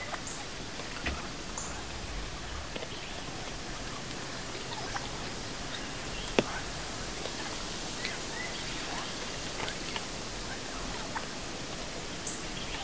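Wild turkeys in a flock giving faint, scattered short calls over a steady outdoor hiss. One sharp click about six seconds in is the loudest sound.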